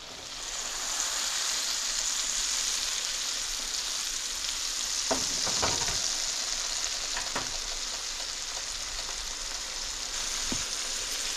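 Speckled trout fillets sizzling in butter in a nonstick frying pan: a steady hiss with a few short pops.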